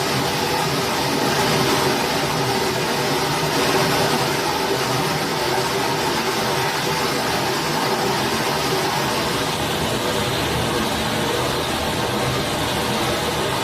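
Steady, even rush of a flowing forest stream.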